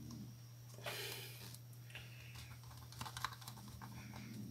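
Faint small clicks and rustles of hands handling a small circuit board and its wires, with a brief scraping rustle about a second in and a few light clicks near three seconds, over a low steady hum.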